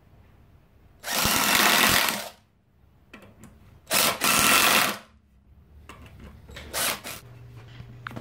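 Handheld Ozito power drill run in two bursts of about a second each, working into the plywood bearing flange clamped on the bandsaw wheel, followed by a few fainter knocks and a short smaller burst near the end.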